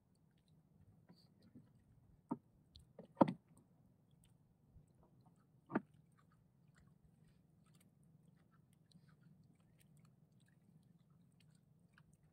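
Quiet handling noises of a fisherman working a handline in a small boat: a few sharp knocks, the loudest about three seconds in and another near six seconds, over a faint steady low hum.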